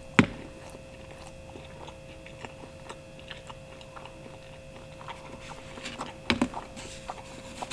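A bite into a slice of meat lovers pizza with one sharp crunch of the crust, then close-up chewing with small scattered clicks and a few louder ones near the end. A faint steady hum runs underneath.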